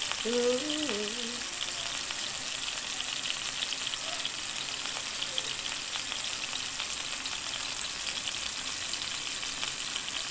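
Fish steaks shallow-frying in hot oil in a pan: a steady sizzle with a fast, fine crackle. A sung phrase trails off in the first second and a half.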